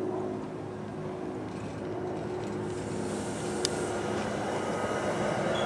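NJ Transit commuter train running cab-car first on the rails, its rumble growing louder as it approaches and draws level. A single sharp click comes a little past the middle.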